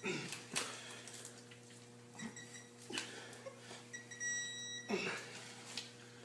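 Digital torque-angle wrench gauge beeping in a quick run of short high beeps, then a held beep about four seconds in, as a head stud on a Ford 6.0 diesel is turned through its torque angle. A few sharp clanks of the wrench and metal fall near the start, around three seconds and around five seconds.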